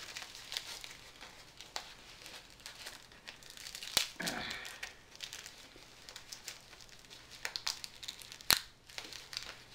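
Clear plastic bag crinkling and rustling as fingers work at the packing tape wrapped around it, with sharp snaps about four seconds in and again near the end.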